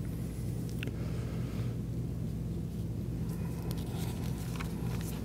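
Quiet room tone: a steady low hum, with a few faint ticks and soft rustles.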